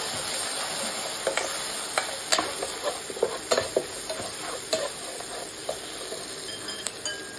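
Chopped vegetables and sauce sizzling in hot oil in a stainless steel pan while being stirred with a metal spatula. The spatula clicks and scrapes against the pan several times through the middle of the stretch, and the sizzle then settles to a steady hiss.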